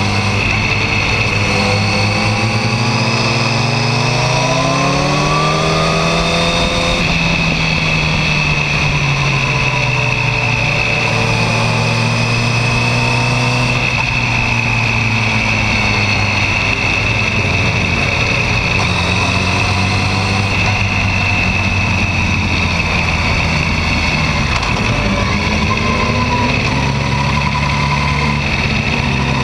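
Yamaha R1 sport bike's inline-four engine under way. The revs climb for about five seconds, drop back, hold fairly steady with small rises and falls, then climb again near the end, over a steady rush of noise.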